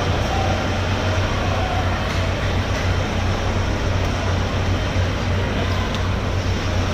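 Steady low mechanical hum over a constant wash of background noise, typical of machinery running in a large work hall. There are no distinct cutting or chopping sounds, only a faint tick or two.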